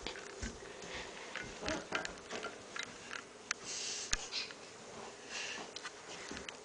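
Scattered soft bumps, clicks and rustles with short breathy hisses, as someone climbs a carpeted staircase on hands and feet and the camera is carried along.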